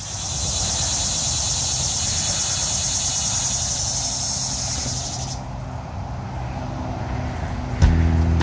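A high, steady insect chorus over a low outdoor rumble; the insects drop out about five seconds in. Background music starts near the end and is the loudest sound there.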